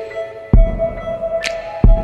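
Ambient background music with held synth-like tones, deep low thumps about half a second in and again near the end, and a short high swish between them.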